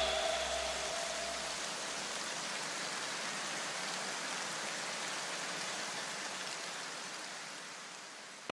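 A faint, even hiss left over as an electronic music track ends. It fades slowly and cuts off just before the end.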